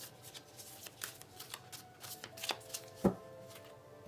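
A tarot deck being shuffled and handled: a run of light, papery card clicks and slides, with one sharp tap about three seconds in.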